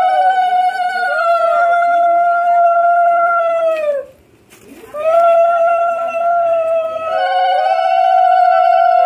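Several women ululating together (Bengali ulu-dhwani), in long, overlapping high-pitched calls that each fall away at the end, with a brief pause about four seconds in before they start up again.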